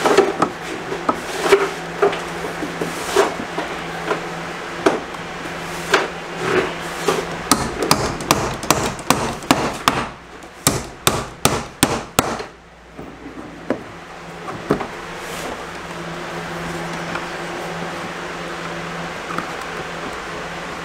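Hammer driving the nails of a plastic electrical outlet box into a wooden stud block: scattered taps at first, then a quick even run of strikes about two or three a second for some five seconds, after which the hammering stops.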